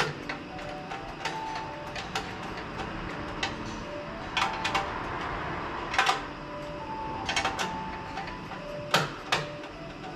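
Metal tools clicking and knocking on a household snowblower's parts as they are refitted by hand: scattered sharp clicks, the loudest about six and nine seconds in.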